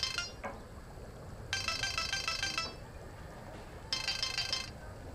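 Phone ringing with a melodic ringtone: a quick run of bright notes about a second long, repeating every couple of seconds, an incoming call not yet answered.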